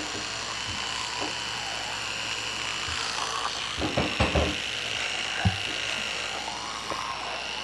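Electric toothbrush running in a mouth during brushing, a steady high-pitched buzz. A few dull knocks come about four seconds in, and a single sharp tap follows a second or so later.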